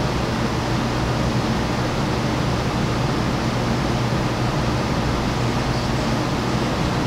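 Steady, even hiss with a constant low hum under it, unchanging throughout: continuous background room or equipment noise.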